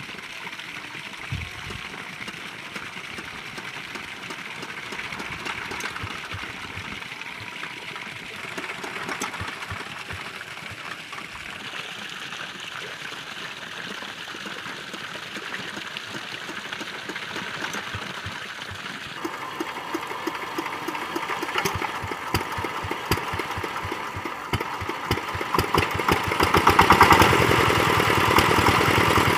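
Old two-wheel hand tractor's single-cylinder diesel engine being coaxed to life after refusing to start. It gives only faint irregular knocks at first, then about two-thirds of the way through it is running with a rapid, even chug that gets louder and quicker near the end.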